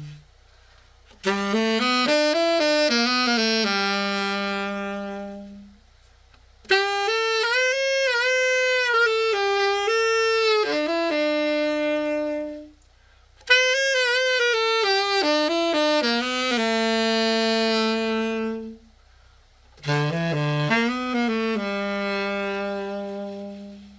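Yanagisawa Prima T-40 tenor saxophone played in four short phrases with brief breaks between them, each running through several notes and ending on a held note. This is the play test after a complete overhaul.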